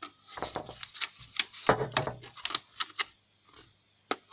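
Irregular clicks, taps and knocks of a plastic router casing being handled and pried while trying to find where it opens, with one louder knock a little under two seconds in.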